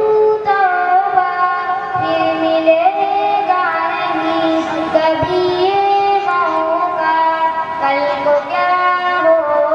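A boy singing a naat solo, unaccompanied, through a stage microphone, in long held notes that slide slowly from pitch to pitch.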